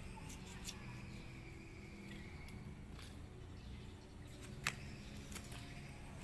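Passion fruit shells handled in the hands: a few light clicks and taps, with two sharper clicks, one about a second in and one near two-thirds of the way through, over low background noise.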